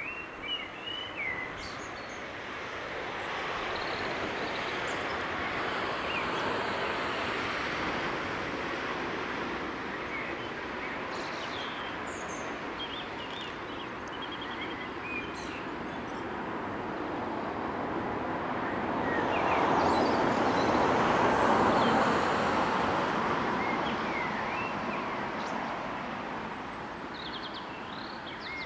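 Birds chirping in short high calls over a broad rushing noise that builds twice and is loudest about two-thirds of the way through.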